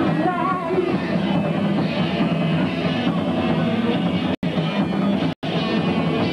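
Rock band playing live, with drum kit, electric guitar and a singer's voice. The sound cuts out completely twice for a split second near the end.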